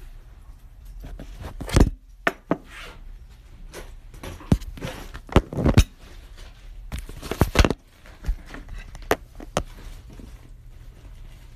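Irregular knocks, thumps and rustling, about half a dozen louder knocks scattered through, like someone moving about and handling objects in a small room.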